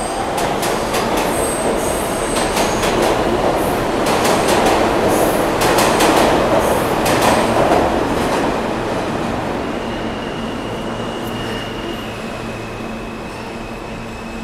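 New York City subway train running along the platform and pulling away: a rumble with quick clicks of wheels over the rail joints, loudest around six to eight seconds in, then fading. From about ten seconds in, a steady high squeal as another train's wheels move along the track beside the platform.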